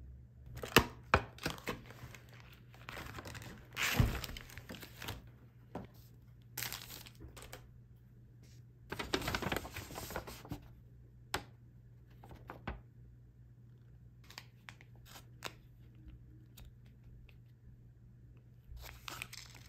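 Clear plastic food packaging being opened and handled: crinkling and rustling in several bursts, the loudest about four seconds in, with scattered sharp clicks and taps in between. A folded paper leaflet and a vacuum-sealed plastic meat pack are handled later on.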